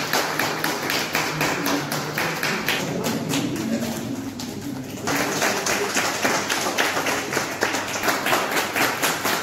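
A roomful of people clapping their hands, the separate claps distinct and quick. It grows louder and sharper about five seconds in.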